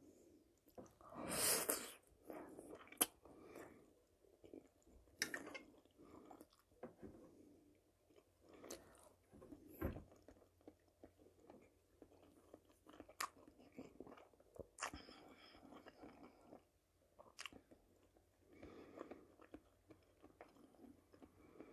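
Faint close-up chewing of spaghetti and fried wild mushrooms, in irregular soft bursts with scattered sharp clicks, the loudest burst about a second and a half in.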